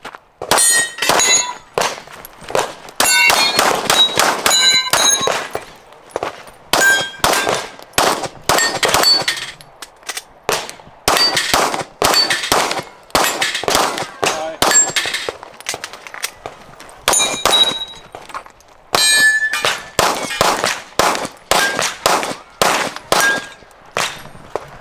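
Rapid strings of pistol shots fired at steel targets, with short pauses between strings. Most shots are followed by the bright ring of a steel plate, the sign of a hit.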